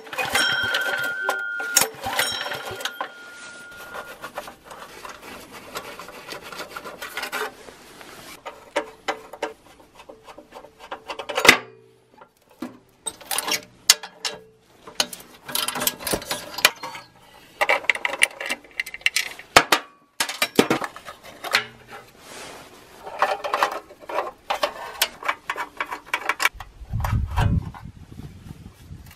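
Hand tools clicking, tapping and scraping on metal parts, irregular and stop-start, with a low rumble near the end.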